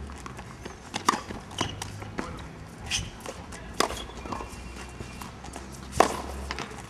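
Tennis rackets striking the ball in a rally, sharp pops about every two to three seconds, with lighter knocks of the ball bouncing on the hard court and footsteps between the hits.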